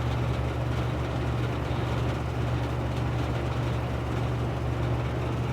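Outdoor heat pump unit running with a steady low hum, its coil iced up in the cold.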